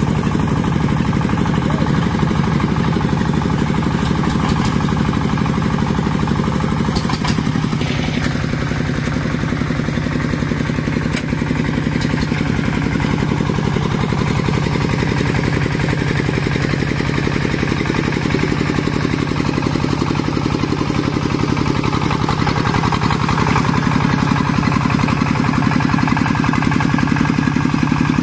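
A small engine running steadily at an even speed, a little louder near the end.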